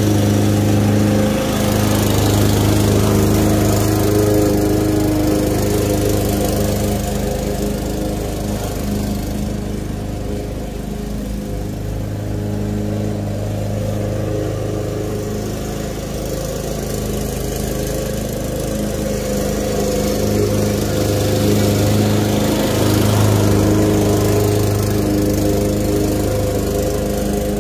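Craftsman walk-behind gas lawn mower running steadily while cutting long grass. Its engine hum swells and eases several times as it is pushed back and forth.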